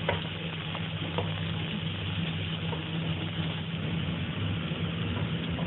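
Sliced ginger sizzling in a little oil in a non-stick pan, stirred with a wooden spatula that taps and scrapes a few times in the first second or so, over a steady low mechanical hum.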